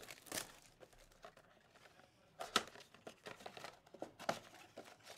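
A Topps Chrome baseball blaster box being opened by hand: cardboard and packaging crinkling and tearing in short crackles, loudest about two and a half seconds in and again a little after four seconds.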